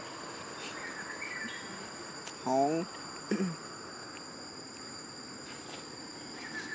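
Steady high-pitched drone of insects, held at two pitches throughout. About two and a half seconds in, a short voice sound falls in pitch, followed by a briefer one just after.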